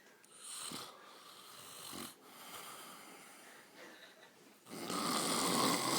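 A person snoring: two shorter, softer snoring breaths in the first couple of seconds, then a long, loud snore starting about five seconds in.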